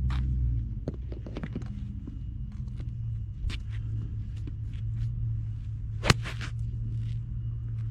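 Sharp clicks of golf clubs striking balls at a driving range, the loudest and cleanest strike about six seconds in, with fainter strikes scattered around it. A low steady rumble runs underneath.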